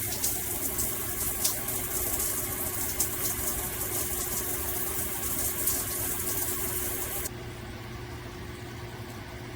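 Handheld shower head spraying water, a steady hiss with crackling droplets over a low hum. About seven seconds in, the high hiss drops abruptly and the water runs on more quietly.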